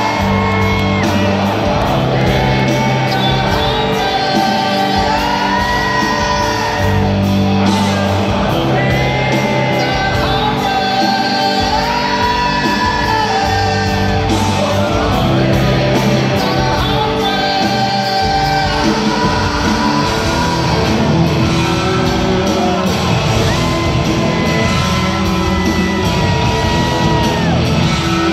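Live rock band with electric guitars, bass and drums, recorded from the audience in a large hall; a male lead singer holds long sung notes over the band.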